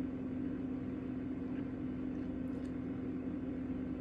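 Steady low hum over a faint even hiss, the constant background of a small room with a running appliance. There are faint small ticks about two and a half seconds in.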